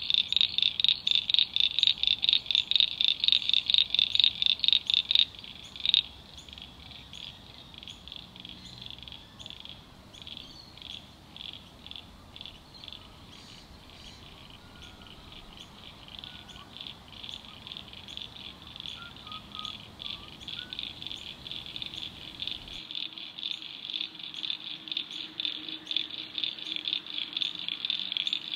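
Wetland ambience of high, rapidly pulsing animal calls repeating several times a second. The calls are loud at first, drop away after about five seconds, and build again near the end.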